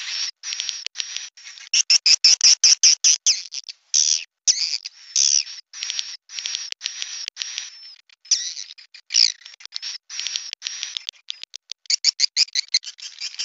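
Small birds chirping: quick trains of short, high chirps in clustered bursts with brief gaps, loudest from about two to four seconds in, around nine seconds, and near the end.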